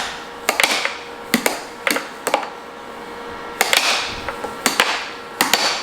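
A series of sharp knocks and clacks, about eight at uneven intervals, each trailing off in a brief hissy rustle, like small hard objects striking a hard surface.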